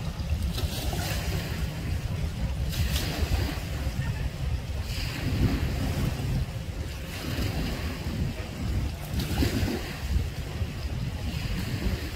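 Wind buffeting the microphone in a steady low rumble, with small waves lapping in short hissy washes every couple of seconds.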